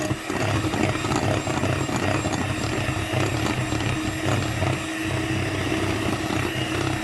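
Small electric motor running steadily, typical of a kitchen mixer beating.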